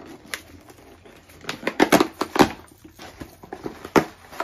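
Cardboard shipping box sealed with Prime tape being torn open: tape ripping and cardboard crackling in a string of sharp sounds, loudest about two seconds in, with another sharp crack near the end.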